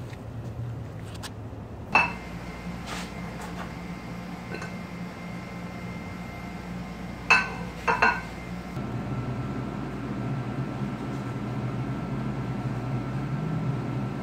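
Sharp metallic clinks that each ring on briefly, over a low steady hum: one about two seconds in, then two close together about halfway through as a pan clanks against another pan on a gas stove.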